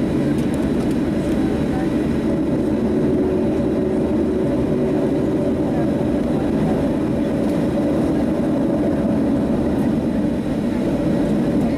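Steady cabin rumble inside a Boeing 737-700 after landing, its CFM56-7B engines idling as the jet taxis in, with a faint steady hum running through it.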